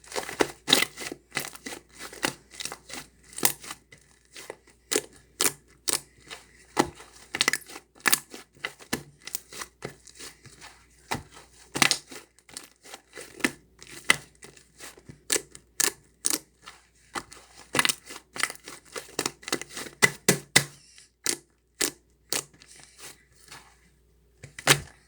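A large fluffy slime squeezed and stretched by hand, giving irregular sharp pops and crackles, a few a second.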